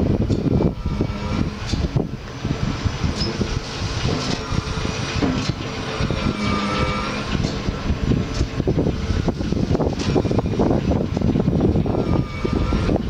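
Lufkin pump jack running, a steady mechanical hum from its drive with faint drifting tones, under heavy wind buffeting on the microphone.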